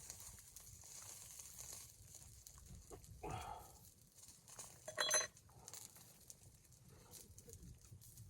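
A dog gives a brief whine about three seconds in. About two seconds later comes a sharp metallic clink, the loudest sound.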